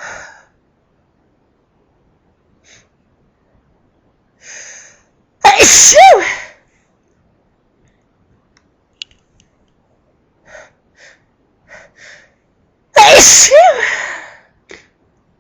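A woman sneezing loudly twice, about seven seconds apart, each sneeze carrying a cry whose pitch rises and falls. Short quick inhales come before each sneeze, a run of four catching breaths before the second.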